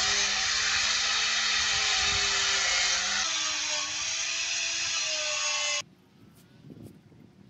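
Handheld electric power tool working over wooden battens, a steady motor whine with a harsh rubbing noise; the motor pitch steps up slightly about three seconds in. It cuts off abruptly about six seconds in, leaving only faint background sound.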